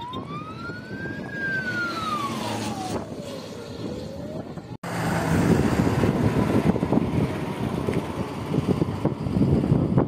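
An emergency-vehicle siren wailing, its pitch slowly rising and falling. A little under halfway through it cuts off suddenly, and a louder steady rushing noise follows.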